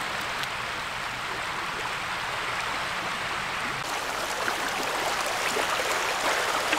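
Small waves washing over a pebble shore, a steady rushing hiss with faint clicks of stones, growing louder about four seconds in.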